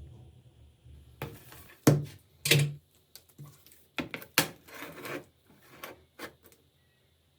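Irregular sharp taps and clicks of hard objects being handled, about ten in all, with faint rubbing between them.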